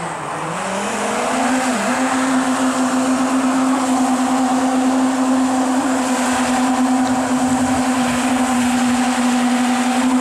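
Electric jet drive of a DIY jet kayak whining as its motor and impeller spin up, the pitch rising over about the first two seconds and then holding steady, over a rush of water from the jet and wake.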